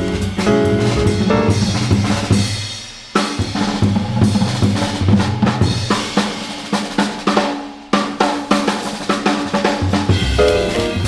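Jazz drum kit playing a solo break of snare, bass drum and cymbals. The piano and bass of the trio are heard briefly at the start and come back in near the end. It is an off-air cassette recording of a radio broadcast.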